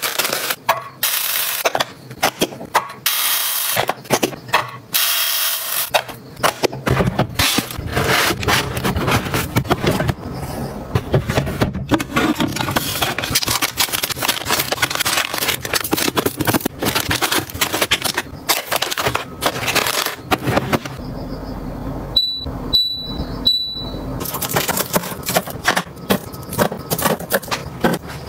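Items being handled and set down: irregular clicking, knocking, scraping and rustling of packaging and containers. Three short, high electronic beeps come about 22 seconds in.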